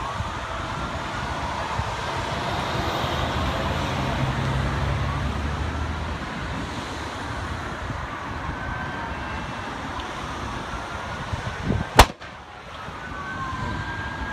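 Steady rushing noise at a highway truck fire, with faint sirens wailing and gliding in the distance. One sharp, loud bang comes about twelve seconds in.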